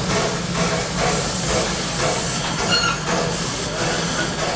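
Hr1 steam locomotive moving slowly, its steam hissing steadily over a low rumble. A brief high squeal comes about two-thirds of the way in.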